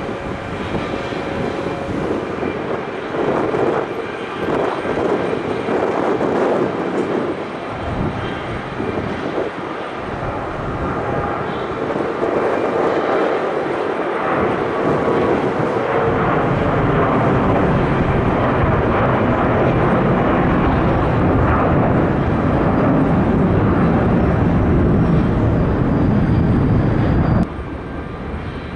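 Jet airliner engine noise from a passing plane, a continuous rumble that grows louder and deeper through the second half and cuts off abruptly near the end.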